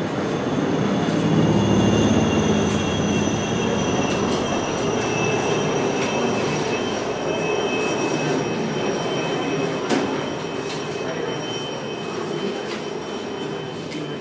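A loud, steady rumbling mechanical noise with thin high squealing tones that drift slowly down in pitch, loudest in the first few seconds and easing toward the end, with one sharp click about ten seconds in.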